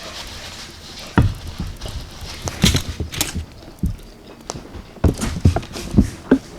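A person chewing baked chicken parmesan, with irregular clicks and taps of eating and a few brief rustles.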